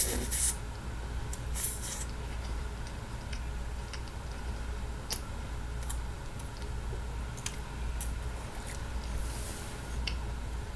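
Two short rustles near the start and a few soft clicks from handling and eating a deep-fried Twinkie, over a steady low hum.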